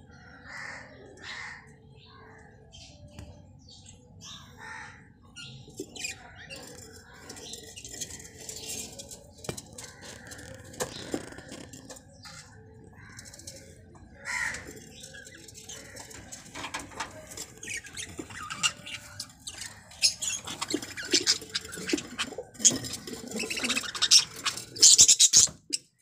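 Budgerigars chirping and chattering in short, scattered calls. A busy run of scratchy clicks and rustles builds and grows louder in the second half.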